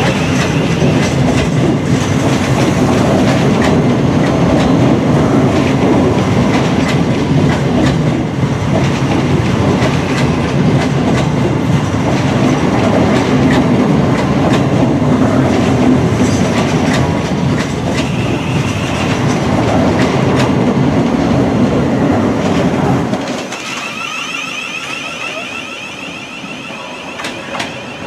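Thameslink Class 700 electric multiple unit pulling out and running past, a steady rumble of wheels on rail. It drops away sharply about 23 seconds in.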